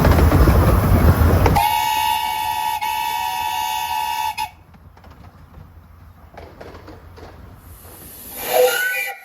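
Steam locomotive whistle giving one steady blast of about three seconds, a single clear pitch with many overtones, after a loud rushing noise. Near the end comes a short burst of hiss with brief rising tones.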